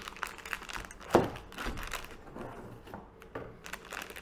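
Crinkling and crackling of a shiny foil packaging bag handled and lifted out of a cardboard box, with one louder thump about a second in.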